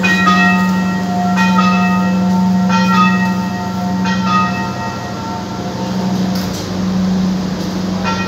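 Railway station chime melody: bell-like notes at several pitches, struck about every second and a quarter, over a steady low hum.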